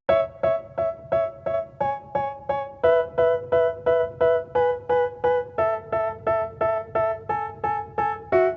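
Background music: piano-like keyboard chords struck in a steady repeated pattern, about three a second, the chord changing every second or two.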